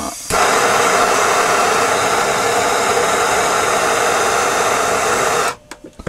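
A loud, steady rushing noise with no clear pitch, like a blower or static hiss. It starts abruptly and cuts off sharply about five seconds later.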